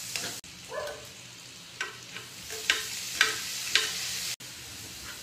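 Vegetables sizzling in a wok on a portable gas burner, with a metal ladle stirring, scraping and clinking sharply against the pan about four times.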